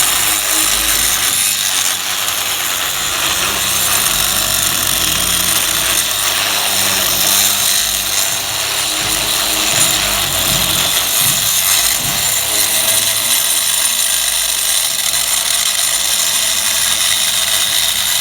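Power tool cutting into a wall, running steadily under load with a loud, continuous cutting noise.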